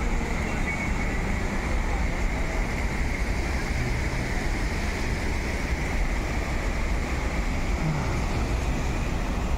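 Steady rush of water jetting from a dam's outlets and churning through the rocky river below, with a heavy low rumble.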